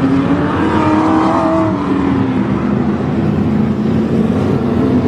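Several figure-8 dirt-track race cars' engines running hard together, their pitches rising and falling as they accelerate and pass.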